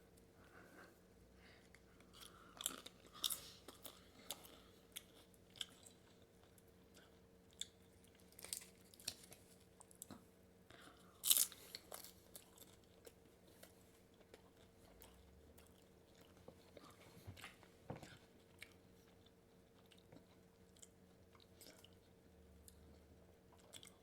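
A person chewing and crunching crunchy food close to the microphone, in scattered bites with a louder crunch about eleven seconds in, over a faint steady hum.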